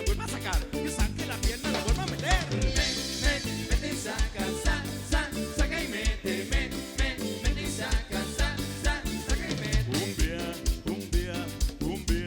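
Cumbia band playing live, with a steady pulse of bass and drums under a pitched melody line.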